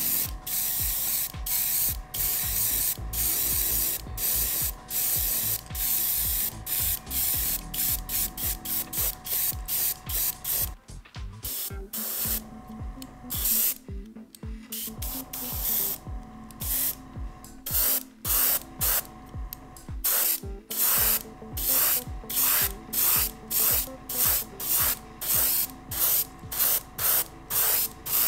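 Gravity-feed airbrush spraying paint onto a hard-bait fishing lure in many short hissing bursts as the trigger is pressed and released, the bursts closer together in the first part and about two a second later on.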